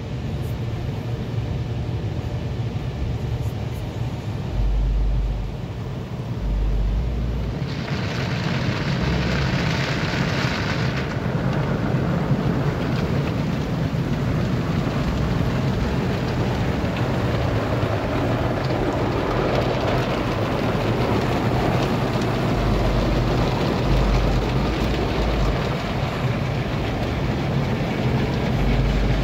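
Automatic car wash heard from inside the car: a steady low rumble of the wash machinery, with water spraying onto the car body. A loud hiss of spray swells for about three seconds starting some eight seconds in, and the spray grows again through the second half.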